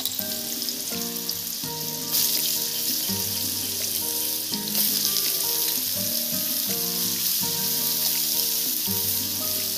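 Hot oil sizzling in a wok as chopped bottle gourd is tipped in over fried dry chillies and radhuni; the sizzle swells about two seconds in and again near five seconds as more gourd goes in. Background music with a plain melody plays underneath.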